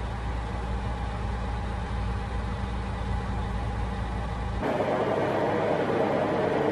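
Freightliner truck engine running with a steady low drone, heard inside the cab on the move. About four and a half seconds in, the sound cuts abruptly to a steady rushing noise without the engine's low hum.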